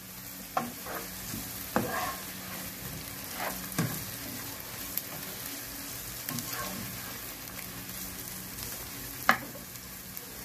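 Shredded chicken, onions and green chillies sizzling in oil in a non-stick kadai as a spatula stirs and scrapes them. A few sharp knocks of the spatula against the pan come through, the loudest near the end.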